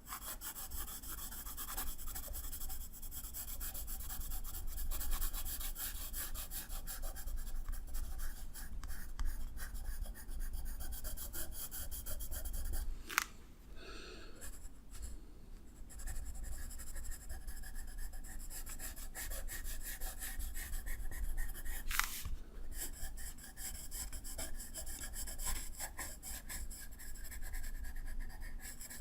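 A drawing tool scratching on paper in rapid short strokes. It stops twice for a second or two, each time after a quick high falling sweep.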